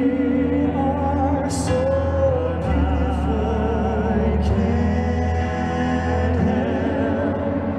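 Male vocal group singing live in close harmony with vibrato, over sustained low notes from an electronic keyboard.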